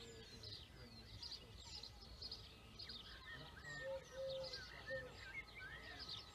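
Several birds singing and calling at once, a busy mix of short chirps and whistles, with a few lower notes about four to five seconds in. A low steady rumble runs underneath.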